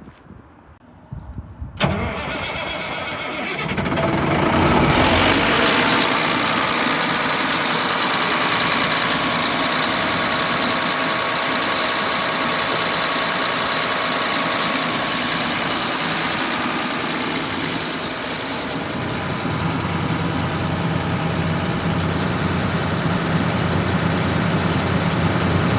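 Caterpillar C13 six-cylinder diesel engine of a towable air compressor starting about two seconds in, building up over the next few seconds, then running steadily. Its note deepens and grows a little louder near the end.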